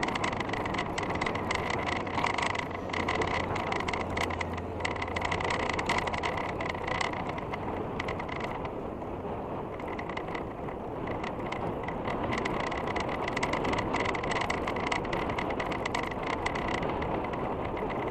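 Mountain bike rolling across a bridge deck of steel track strips over timber planks: steady tyre and road noise with constant small clicks and rattles.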